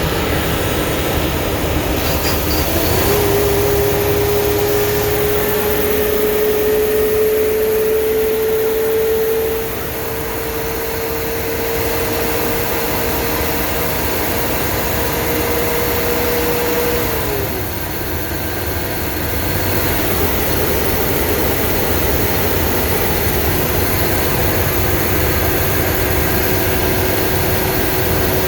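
Blue Bird school bus running down the road: a steady engine and road noise, with a whine that sets in about three seconds in, climbs slowly in pitch, and drops away a little past halfway.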